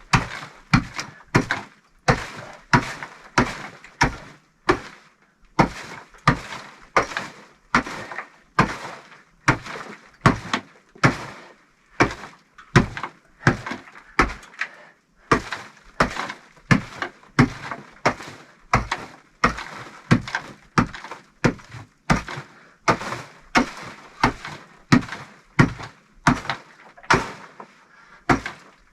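Rapid, even series of sharp blows, about one and a half to two a second, as something is struck over and over with a hand tool.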